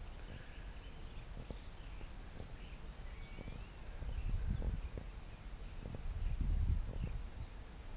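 Quiet outdoor ambience with two low rumbling swells, about four and six seconds in. Faint short bird chirps and a steady high hiss sit above it.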